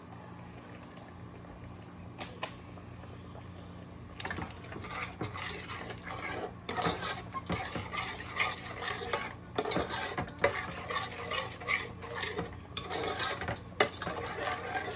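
A utensil stirring in a cooking pan, with irregular scraping and clinking that starts about four seconds in, over a steady low hum.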